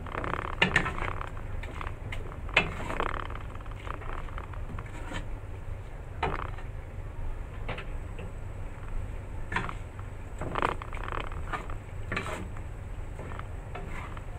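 Wooden spatula stirring long beans in a coconut-milk sauce in a granite-coated wok, knocking and scraping against the pan at irregular moments every second or two, over a steady low hum.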